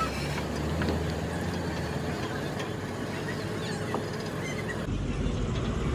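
Vehicle engine and road noise, steady and mechanical. About five seconds in, the sound changes abruptly to a deeper rumble.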